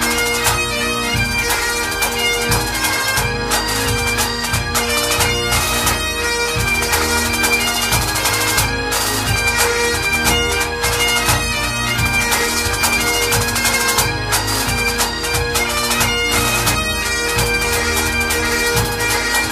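Scottish Highland bagpipes playing a tune over their steady drones.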